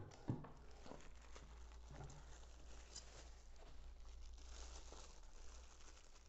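Plastic packaging bags rustling and crinkling faintly as packed parts are handled, with a few light taps.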